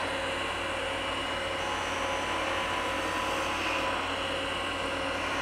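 Wood lathe running with an even, steady machine hum.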